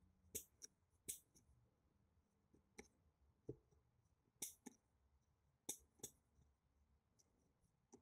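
Small metallic clicks of a wire pick and tensioner working the spring-loaded levers inside a 1947 Russian lever padlock: about ten short, irregular clicks with quiet in between.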